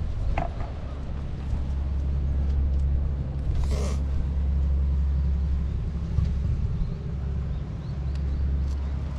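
Steady low engine hum, like a motor vehicle idling, with a brief higher noisy sound about four seconds in.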